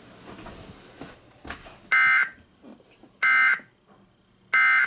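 Emergency Alert System end-of-message signal: three short bursts of SAME digital data tones, a harsh two-tone warble, each under half a second and about 1.3 s apart, marking the end of the alert.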